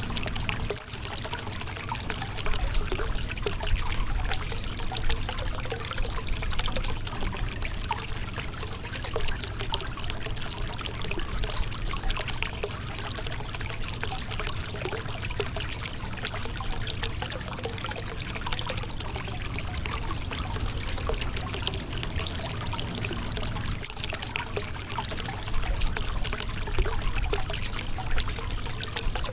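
River water running over a rocky bed, a steady rushing with many small splashes and gurgles.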